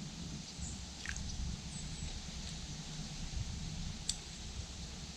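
Quiet river-side background: a steady low rush with a few faint, short high chirps and occasional sharp clicks, the loudest click right at the end.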